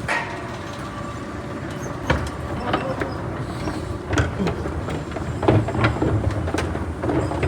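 Underground subway station ambience: a steady low rumble with a sharp click at the start and irregular knocks and clicks, busier in the second half.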